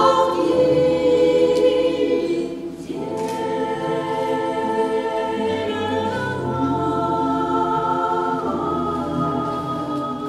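Women's voices singing slowly in close harmony over an electronic keyboard, with long held notes. The chord changes about three seconds in and again near the end.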